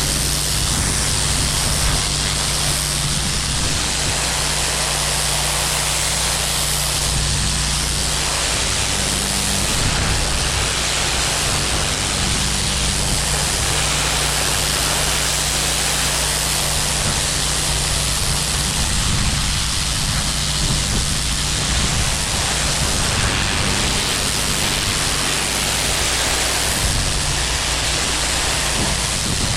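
Pressure washer running steadily: a constant engine hum under the loud hiss of high-pressure water spraying on a hard surface.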